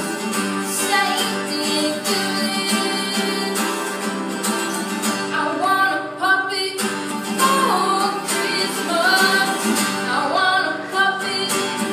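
Acoustic guitar played with a boy singing over it, his voice most prominent from about five seconds in.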